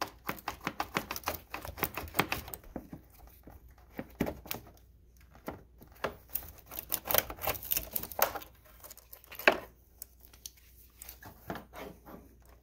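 Hand ratchet wrench clicking in quick runs, with light metal clinks, as the 10 mm nuts on a car battery's terminals and hold-down strap are undone. One sharper clank about nine and a half seconds in.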